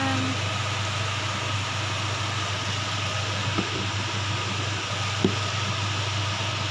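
A steady low hum under an even hiss, with two faint ticks about a second and a half apart midway through.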